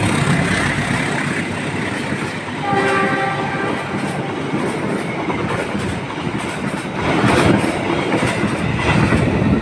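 Stainless steel passenger coaches of a locomotive-hauled train rolling past at speed, a steady rush of wheels on rail. There is a short pitched tone about three seconds in, and the rush grows louder from about seven seconds in.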